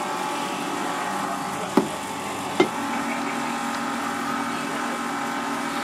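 Two sharp knocks, under a second apart, of a cleaver chopping through stingray onto a wooden board, over a steady mechanical hum.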